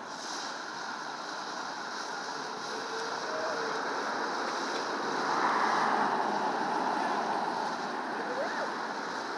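A small sparkling fountain firework spraying sparks with a steady hiss that swells a little about halfway through.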